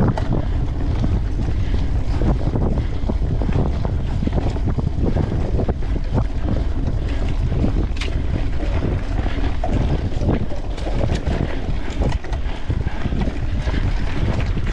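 Wind rushing over the microphone with a steady low rumble, and frequent rattles and knocks from a mountain bike riding fast over a rough, sandy forest trail.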